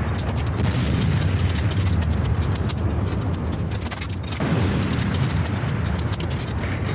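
Walls being demolished: a continuous rumble and crashing of falling masonry and debris, with a fresh surge of crashing about four and a half seconds in.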